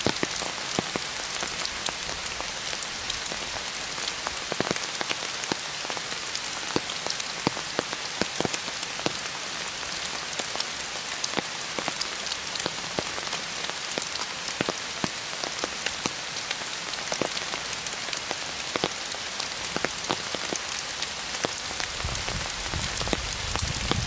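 Steady rain falling, a continuous hiss dotted with many sharp ticks of single drops striking.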